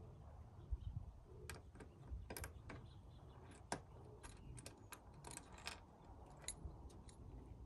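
Faint, scattered clicks and clinks of a socket ratchet and box-end wrench tightening the install bolt that sets a Plusnut rivet nut in the truck's sheet-metal roof. A few clicks come in short clusters.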